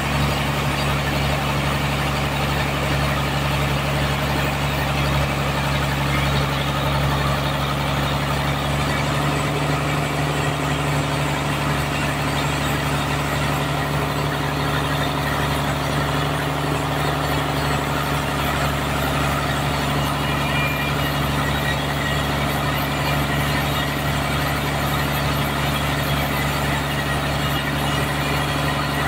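Sawmill engine running steadily at a constant speed, a continuous low hum with no change in pitch or load.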